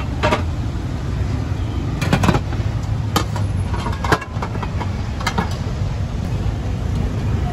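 Steady street traffic rumble with a handful of short, sharp clinks as tongs and the domed aluminium lid knock against an aluminium food steamer.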